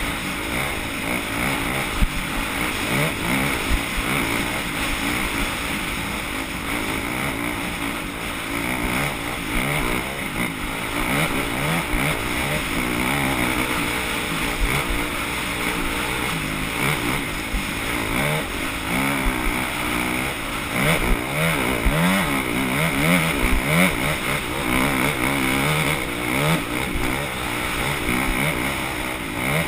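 Several dirt bike engines revving up and down together as the riders race around the course, the pitches rising and falling over one another.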